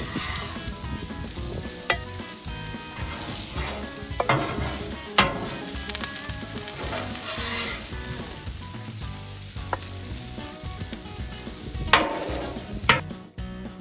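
Chicken fajitas with bell peppers and onions sizzling on a Blackstone flat-top griddle, with several sharp scrapes and clanks of a metal utensil on the griddle as the food is lifted off. The sizzle cuts off suddenly near the end.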